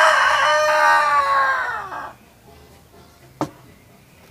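A rooster crowing once: one long call that falls in pitch at its end and stops about two seconds in. A single sharp knock follows about three and a half seconds in.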